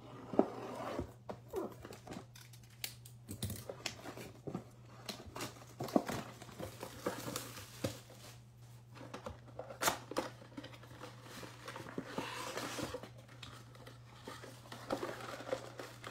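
Plastic wrap crinkling and being torn off a cardboard box of trading cards, with irregular rustling, crackling and sharp clicks of packaging being handled, over a steady low hum.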